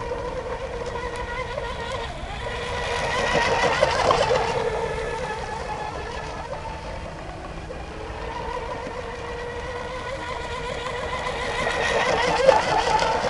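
Fast-electric RC racing boat with a Leo 4082 brushless motor and X642 propeller running at speed: a steady high motor-and-propeller whine with a rushing hiss of spray. It swells loud as the boat passes close about four seconds in, and again near the end.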